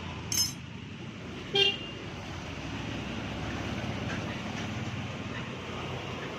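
Steady background hum of road traffic, with a light metallic clink about half a second in and a short vehicle horn toot about a second and a half in.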